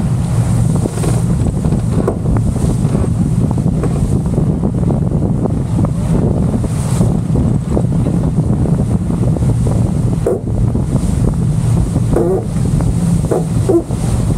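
Heavy wind noise buffeting the microphone over water rushing past a racing sailboat's hull.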